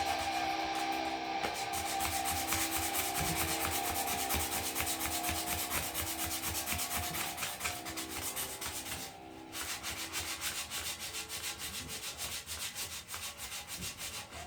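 Sandpaper rubbed by hand over a rusty steel bicycle frame in rapid back-and-forth strokes, scratching at the paint and stickers. The strokes pause briefly about nine seconds in, then carry on.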